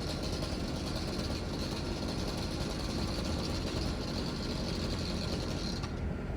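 Small petrol engine of lawn equipment running steadily under load, with a high steady whine on top that drops away about six seconds in.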